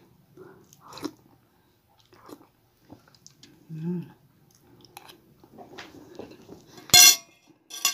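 Close-miked eating sounds: chewing and small mouth noises while a metal spoon scoops rice and chicken soup from a plate. A sharp, ringing clink of the spoon on the plate near the end is the loudest sound.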